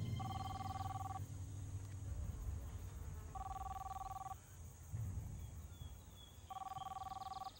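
A phone ringing: three one-second rings, each two steady tones sounding together, about three seconds apart.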